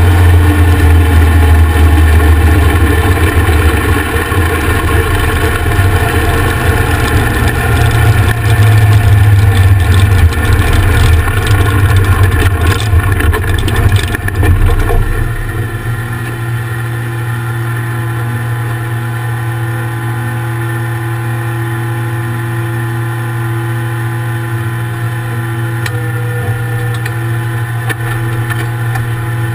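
Dragster engine running through open chrome headers, loud and rough. About halfway through it drops to a quieter, steady idle.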